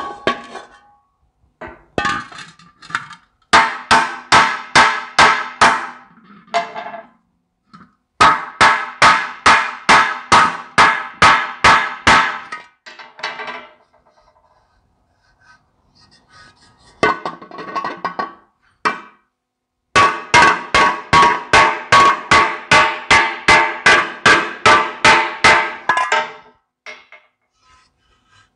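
Hammer blows on a dented sheet-metal tractor air cleaner cover, straightening out the dents. The blows come about three a second in three runs of several seconds each, with a few scattered taps between runs, and each blow rings with a metallic pitch.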